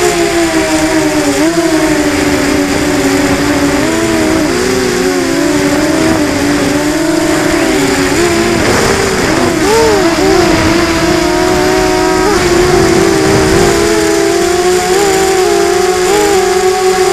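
A drone's electric motors and propellers whining in flight, heard close up through the onboard Mobius camera. The whine's pitch wavers up and down continually as the throttle changes.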